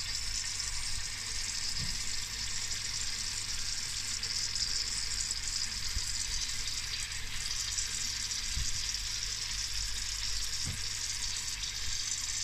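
Sausages sizzling in their fat on a metal baking tray in a hot oven: a steady hiss with fine crackling, over a low steady hum.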